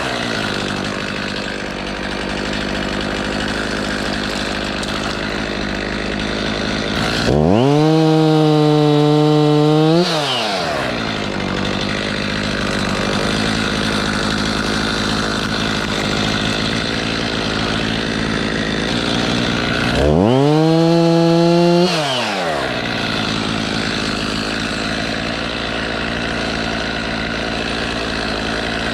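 Chainsaw engine idling, then revved to full throttle twice, each time for about two seconds: the pitch climbs, holds high and drops back to idle.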